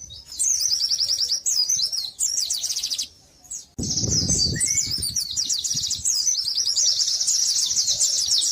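White-eye (pleci) song: fast, high, chattering trills, one phrase after another. The singing breaks off about three seconds in, a brief low rumble follows, and then a long unbroken run of trilling.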